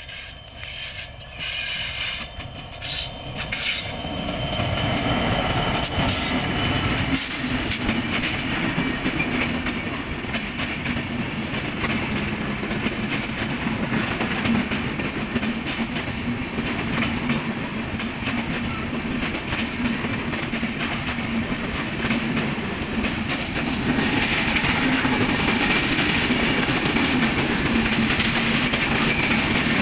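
Bangladesh Railway intercity passenger train hauled by a diesel locomotive passing close by. It grows loud about four seconds in as the locomotive reaches, then the coaches roll steadily past, wheels running on the rails with a steady low hum.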